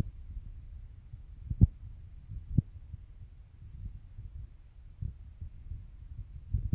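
Low muffled rumble on the microphone with a few dull thumps, the strongest about a second and a half in and another a second later.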